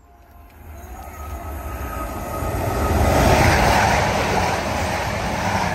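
East Midlands Railway class 222 Meridian diesel multiple unit running through the station at speed without stopping. Its rushing noise builds for about three seconds, peaks, then slowly fades as it goes by.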